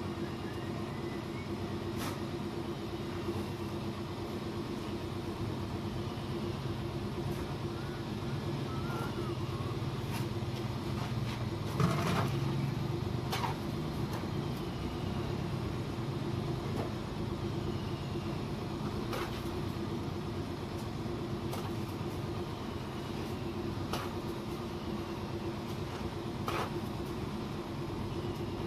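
Steady motor drone with a constant hum, over scattered sharp knocks and clacks of bricks being handled and set on a brick wall; the loudest knock comes about twelve seconds in.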